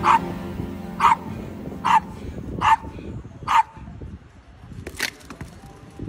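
Yorkshire terrier barking at a soccer ball in play: six short, sharp barks about a second apart, the last a little later and higher than the rest. Faint music fades out under the first barks.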